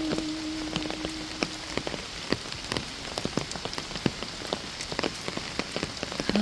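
Steady rain with many individual drops tapping close by. A held note from the hymn fades out within the first two seconds, leaving the rain alone.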